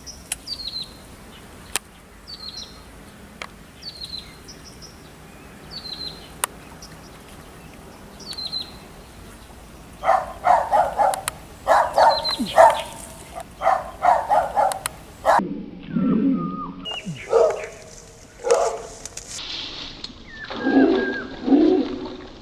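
A bird's short falling chirp, repeated about every second and a half, then from about ten seconds in a dog barking in louder quick runs.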